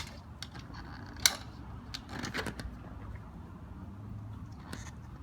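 Little button clips on a pedal drive pontoon boat being released: one sharp click at the start and another about a second later. A short spell of rustling and rubbing follows.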